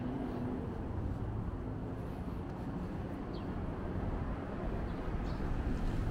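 Outdoor city ambience: a steady low rumble of traffic and passers-by, with a few faint short high chirps.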